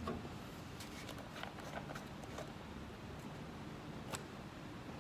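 A few light clicks and taps from hands handling the can fixture on top of a solder paste mixer that is switched off, over faint room noise.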